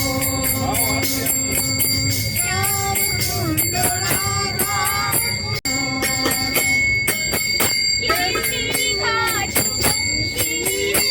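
Background music with a steady beat and jingling bells over a bending melody line; the sound cuts out for an instant about halfway through.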